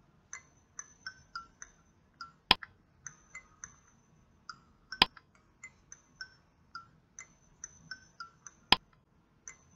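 Sparse background tune of short, high plinking notes at a few different pitches, with a sharp click three times, roughly every two and a half to three and a half seconds.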